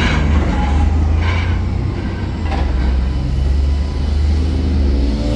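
Low-floor street tram running on its rails beside the platform: a steady, loud low rumble with wheel and motor noise.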